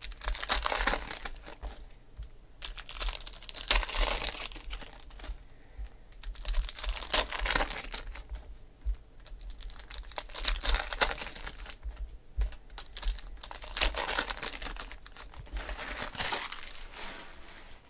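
Foil trading-card pack wrappers crinkling and tearing as they are ripped open by hand, in about six separate bursts a few seconds apart.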